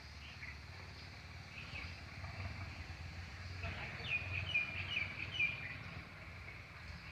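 Songbird chirping: a few faint chirps early, then a quick run of short, high chirps about four seconds in, over a steady low rumble.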